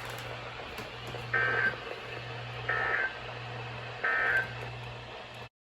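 Emergency Alert System end-of-message code: three short, harsh data-tone bursts about 1.3 s apart, marking the end of the alert. They sit over a steady low electrical hum, and the sound cuts off abruptly near the end.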